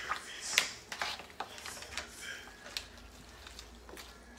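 Kitchen tongs tossing spaghetti with crab and prawns in a large stainless steel pan: irregular clicks and knocks against the pan, the loudest about half a second in, thinning out toward the end.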